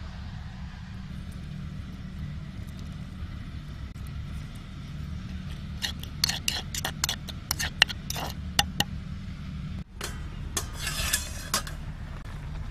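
A metal spoon clinking and scraping against a bowl while stirring a chili sauce, a quick run of sharp clinks. Then comes a brief sizzling hiss from a pan of cabbage and chicken feet cooking over a wood fire. A steady low rumble runs underneath.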